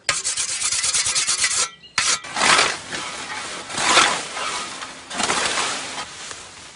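A scythe blade being honed with rapid rasping strokes of a sharpening stone for about a second and a half. After a short click, the scythe swishes through nettles in three broad sweeps about a second and a half apart.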